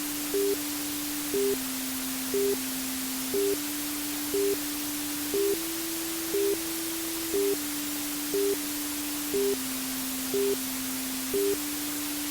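Steady white-noise hiss for lulling a baby to sleep, with a low electronic hum underneath that steps to a new pitch every two seconds. A short, slightly higher beep sounds about once a second.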